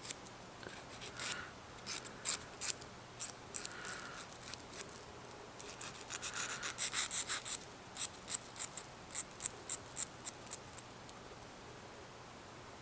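Short strokes of a needle file on the tip of a homemade metal lock pick, fine finishing work on its angle. The strokes come irregularly at first, bunch into a quick run about halfway through, then fall into a row of single, evenly spaced strokes that stop a couple of seconds before the end.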